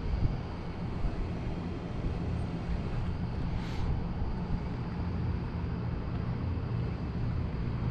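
A steady low engine hum with an even drone, under a haze of wind and water noise, with one short hiss about three and a half seconds in.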